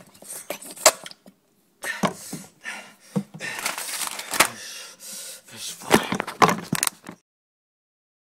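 Rustling and knocking of objects handled right against a phone's microphone, with several sharp cracks; it cuts off abruptly to dead silence about seven seconds in.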